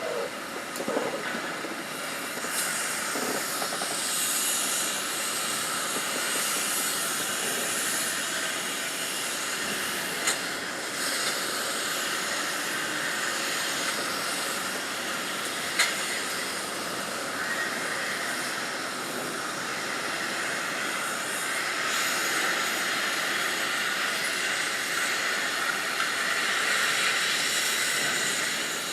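Shipyard work ambience: a steady hiss with a few short sharp knocks, one near the start and two more about ten and sixteen seconds in.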